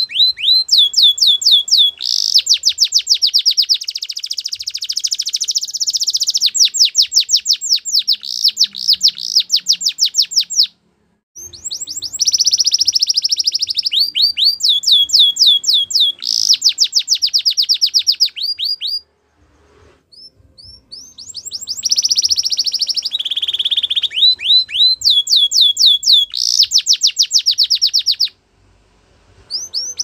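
Domestic canary singing loudly: long, high-pitched phrases of fast trills, each a rapid run of the same sweeping note repeated many times a second, switching from one trill to the next. The song breaks off in short pauses about 11, 19 and 28 seconds in.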